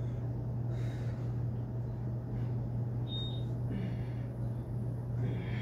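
A steady low hum, with a few faint soft noises and a brief high tone about three seconds in.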